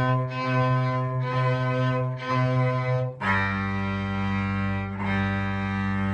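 Cello and violin bowing a beginner exercise together: four repeated C notes about a second each, then the pitch drops to open G strings for two longer G notes.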